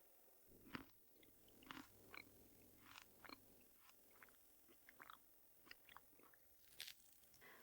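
Faint, scattered small clicks and crunches of a mandarin orange being peeled and eaten.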